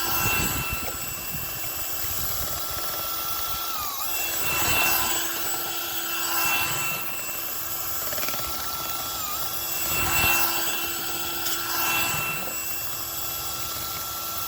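Electric motor of a power tool used to clean a dryer vent, running steadily. Its pitch dips briefly a few times, as if it is being loaded, and swells of rushing noise come and go every couple of seconds.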